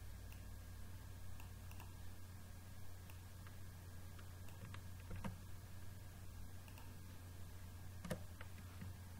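A few faint, scattered clicks from computer input, the sharpest about five and eight seconds in, over a steady low hum.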